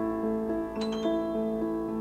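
Grand piano played solo: a flowing pattern of mid-range notes with held bass, and a quick cluster of high notes a little under a second in.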